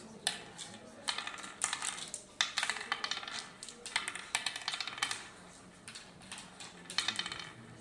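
Hard oware counters clicking as they are dropped one by one into the hollows of a wooden oware board and picked up again during sowing. The clicks come in several quick runs, with short pauses between.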